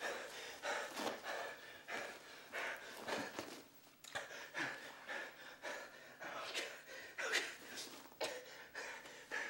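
Heavy, irregular breathing with gasps, about one to two breaths a second.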